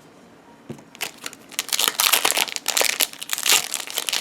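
Foil wrapper of a Pokémon trading card booster pack crinkling loudly as it is handled and torn open, starting about a second in after a brief quiet moment.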